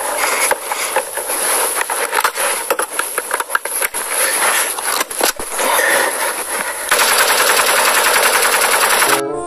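Automatic fire from an AK-pattern rifle: a long, rapid string of shots that cuts off abruptly near the end.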